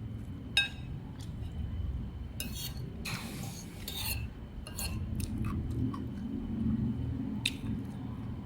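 Cutlery clinking and scraping against a dish: a handful of sharp clinks, the loudest about half a second in, and a short scrape a few seconds in, over a steady low background rumble.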